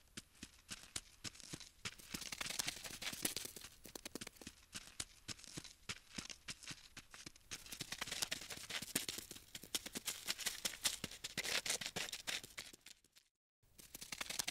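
Scratchy, rapid clicking and rustling of a bug-scuttling sound effect that swells and fades in waves and cuts out briefly near the end.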